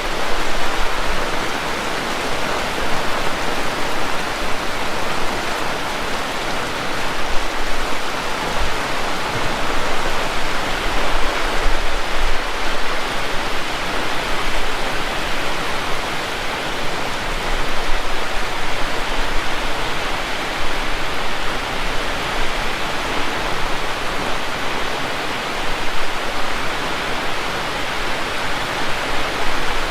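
Heavy rain falling: a steady, dense hiss with no breaks.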